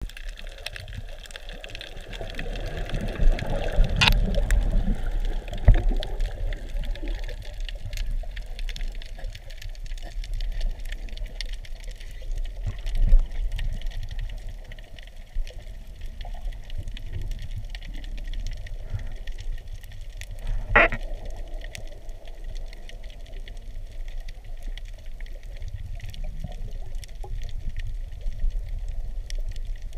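Muffled water noise heard underwater: a steady low rumble and sloshing, louder for a few seconds at the start, with a few sharp clicks, the clearest about 4 seconds in and again near 21 seconds.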